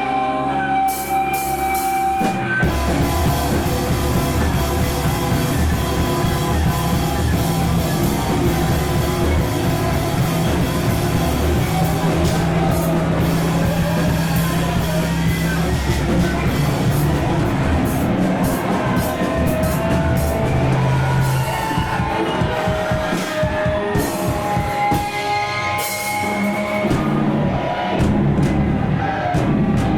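A rock band playing live: electric guitar, bass and drum kit, with the full band coming in about two and a half seconds in after a thinner opening.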